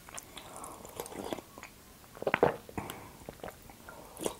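Tea being sipped from a mug and swallowed close to the microphone: a few sips and gulps, loudest a little past the middle.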